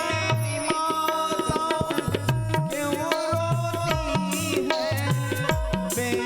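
Indian devotional song music: a tabla-style drum beat under a gliding, ornamented melodic line.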